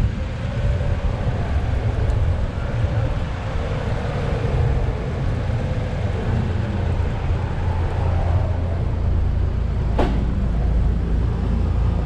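Steady low rumble of wind and road noise on a bicycle-mounted camera riding beside city car traffic, with one sharp click about ten seconds in.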